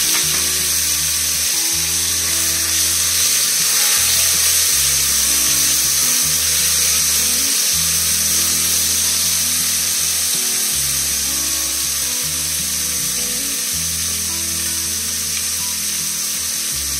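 Chopped tomatoes sizzling in hot oil with onions, dry red chillies and garlic in a pressure cooker: a loud, steady sizzle that eases slightly toward the end. Background music with a low bass line plays underneath.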